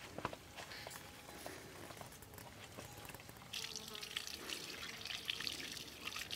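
Water running from a pipe and splashing over hands being washed under it, starting about halfway through; before that only a few soft clicks.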